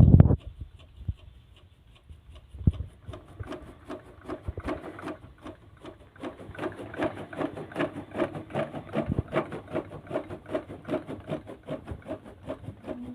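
A machine clattering in a fast, even rhythm of about four strokes a second, getting louder about six seconds in.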